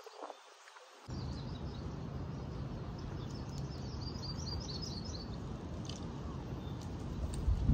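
Songbirds chirping in a quick run of short calls a few seconds in, over a steady low rumble of wind on the microphone. The low rumble swells louder near the end.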